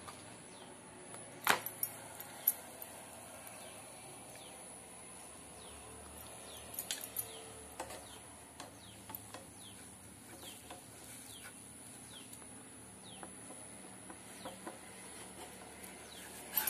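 A few light clicks and taps of a flat spatula against a non-stick tawa as an uncooked stuffed paratha is laid in and settled. Behind them, faint repeated short high chirps that fall in pitch, about two a second, over a low steady hum.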